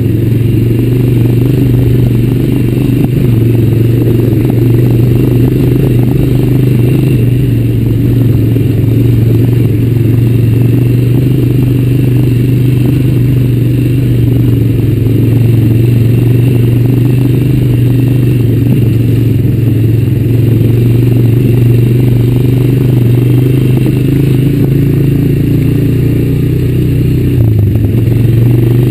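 Honda Recon 250 ATV's single-cylinder four-stroke engine running steadily under way along a dirt trail, its pitch dipping briefly near the end as the throttle eases.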